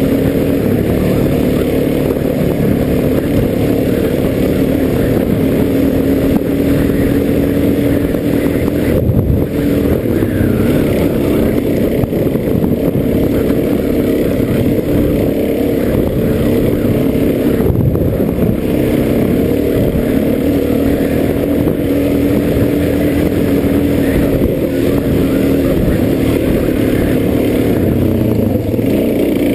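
Dirt bike engine running steadily under throttle, its pitch wavering a little with the throttle and dipping briefly twice.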